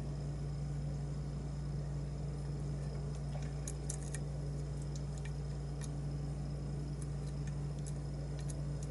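Faint, irregular light clicks of lock picks working the pins inside a challenge lock, over a steady low hum.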